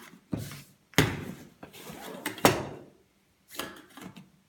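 Camping gear being handled on a table: a lightweight cook pot put down and a nylon mesh stuff sack picked up. This gives a handful of separate scrapes and rustles, the sharpest about a second in and about two and a half seconds in.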